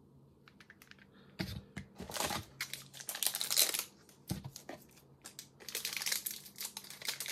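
Crinkling plastic wrapper around a small alcohol ink bottle being handled, heard as irregular crackles and clicks. A few light clicks come first, then two spells of dense crinkling with a short lull between them.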